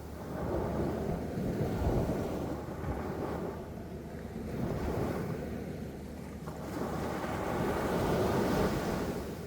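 Sea waves washing in and breaking, the surf rising and falling in slow surges about three times, with wind buffeting the microphone.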